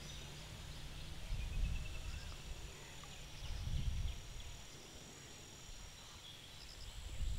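Outdoor ambience: an uneven low rumble of wind on the microphone, with faint short bird chirps and a thin, steady high insect buzz.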